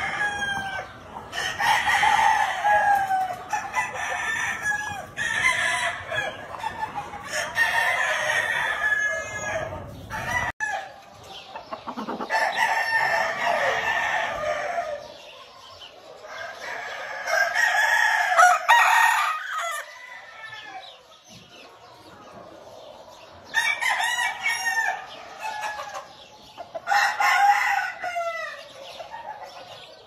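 Several gamefowl roosters crowing over one another in bouts, with a lull about two-thirds of the way through.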